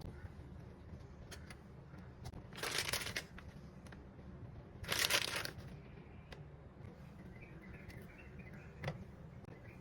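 Kitchen food-preparation handling sounds: two short bursts of rustling about two seconds apart, among light clicks and taps.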